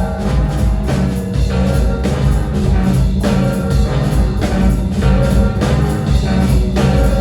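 Live rock band playing an instrumental stretch between sung lines, with heavy bass and drums keeping a steady beat.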